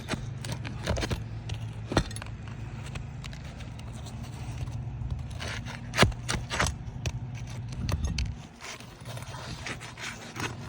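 Roofing nails being pried out of asphalt shingles: irregular scraping of metal against the shingle with sharp clicks and knocks, the loudest about two and six seconds in. A low steady hum runs underneath and drops out about eight seconds in.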